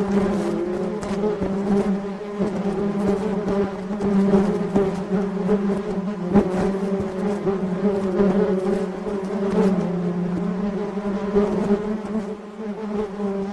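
Swarm of honey bees flying, a dense steady buzzing hum of many wingbeats that wavers slightly in pitch.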